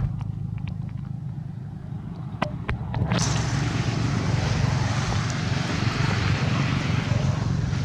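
Motor vehicle on a road: a steady low engine rumble, with a few light clicks early on and a broad rushing noise that comes in about three seconds in and holds.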